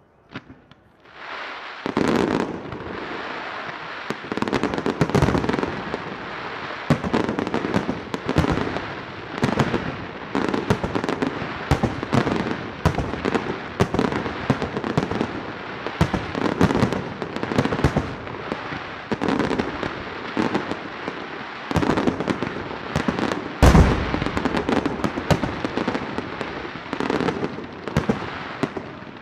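Professional fireworks display: after a nearly quiet first second, a dense, continuous barrage of aerial shell bursts and crackling, with many sharp bangs and one heaviest bang about three-quarters of the way through.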